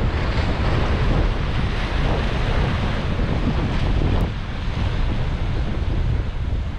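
Wind buffeting the microphone over surf breaking and washing against jetty rocks, a steady rushing noise that eases slightly about four seconds in.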